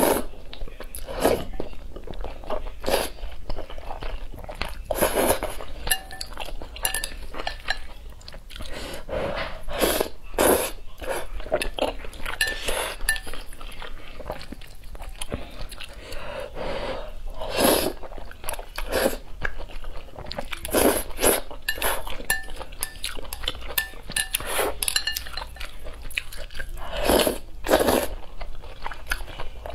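A person slurping and chewing spicy instant fire noodles in many short bursts, with metal chopsticks clinking against a glass bowl now and then.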